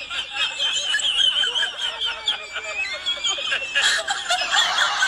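High-pitched giggling laughter with a quickly wavering pitch, like a sped-up comedy laugh effect. A louder, noisier sound joins it near the end.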